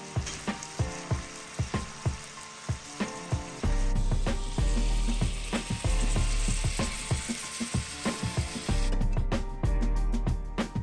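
Background music with a fast, ticking beat and a deep bass that comes in about four seconds in, over the sizzle of steaks frying in butter in a pan; the sizzle drops away near the end.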